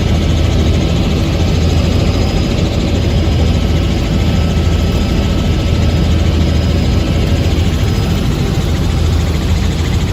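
Helicopter in flight: loud, steady engine and rotor noise with a strong low hum.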